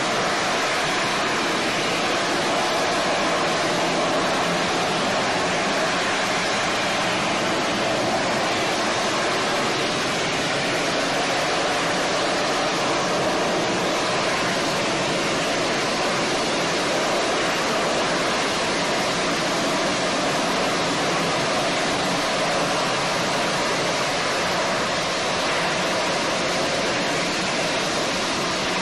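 AV-8B Harrier's Rolls-Royce Pegasus turbofan at hover power during a vertical landing: a loud, steady rushing jet noise that holds level throughout.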